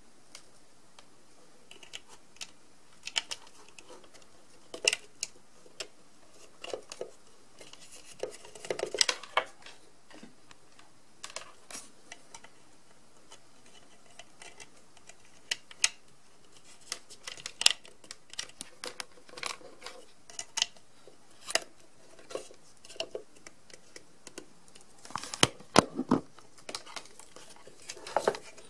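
Hands handling a 3D illusion lamp's black plastic base, flat acrylic panel and power cable on a wooden table: scattered clicks, taps and light knocks at irregular intervals, with short rustles, and a quick run of knocks near the end.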